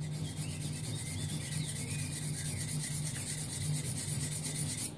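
Wet hand abrading of stone under water: an object rubbed rapidly back and forth against a flat abrasive block, making a steady, fast scraping.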